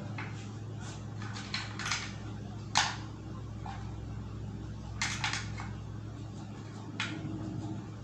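Scattered clicks and knocks of plastic parts and wires being handled in a plastic electrical enclosure, the sharpest about three seconds in, over a steady low hum.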